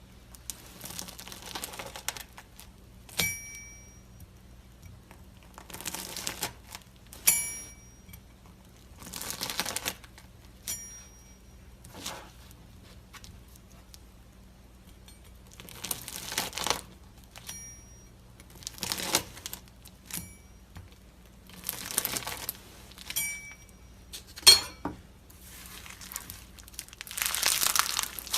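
Slime being squeezed and worked by hand in short bursts of crackly squishing, about a dozen times, with a few sharp clicks between them.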